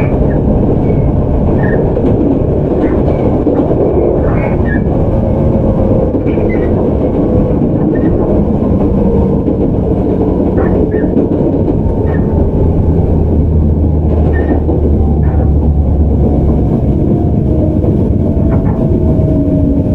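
Interior running sound of a JR 413-series resistor-controlled electric train: a steady loud rumble of wheels and running gear, with a motor and gear whine falling slowly in pitch as the train loses speed. Several brief high squeals are scattered through.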